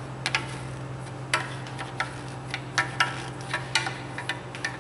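Irregular sharp metallic clicks, two or three a second, as a nut driver goes around the bolts of an automatic transmission oil pan, snugging each one.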